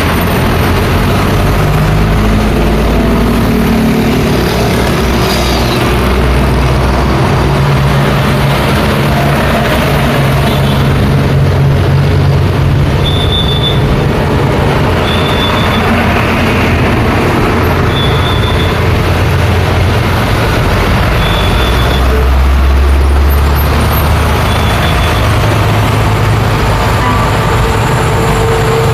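Busy road traffic, heavy trucks and cars driving by with a steady low engine rumble, one heavy vehicle swelling louder about three-quarters of the way through. A short high beep repeats every two to three seconds through the middle.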